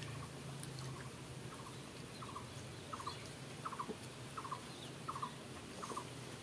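A bird calling: short calls of three or four quick notes each, repeated about every three-quarters of a second, over a steady low hum.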